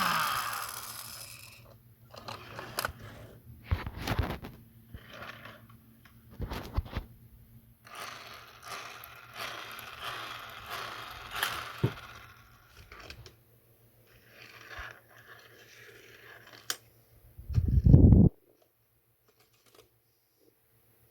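Plastic toy playset pieces being handled and fitted: scattered scrapes, clicks and rustles, with a brief low thump about eighteen seconds in.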